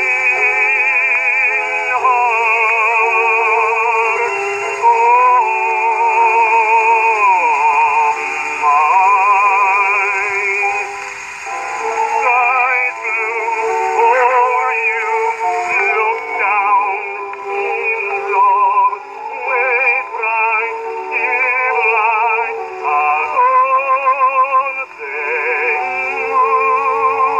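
A 1922 Black Swan 78 rpm acoustic recording playing on a portable wind-up gramophone: a baritone voice with violin, saxophone and piano accompaniment. The sound is thin, with little treble, and long held notes have a wide vibrato.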